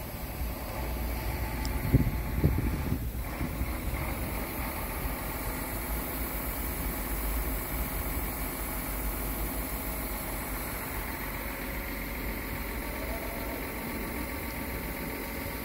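Scania R tractor unit's engine idling steadily, with two short knocks about two seconds in.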